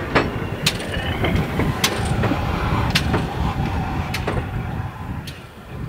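GWR 9300 class 2-6-0 Mogul steam locomotive rolling slowly past: a low rumble with sharp metallic clanks about once a second, fading near the end as it moves away.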